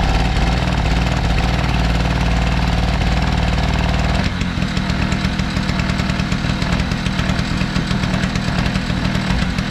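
Power Craft 720 two-stroke portable generator engine running steadily under load from a heat gun. About four seconds in, the sound shifts as a steady higher tone drops out, and the engine keeps running.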